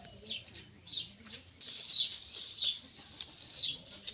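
A bird chirping over and over, with short high chirps roughly once a second, against the light clicks and rustle of dry sticks being handled.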